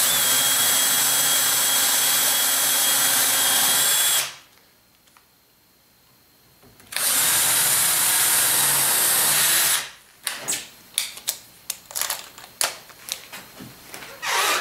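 Cordless drill running at a steady speed as it bores into wood, in two runs of about four and three seconds with a short pause between, followed by a string of light clicks and knocks.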